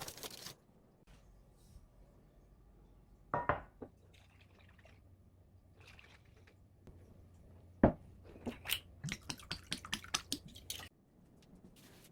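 Kitchen prep handling sounds: a few knocks about three and a half seconds in, a sharp knock near eight seconds, then a quick run of small clicks and clatters with some liquid sounds.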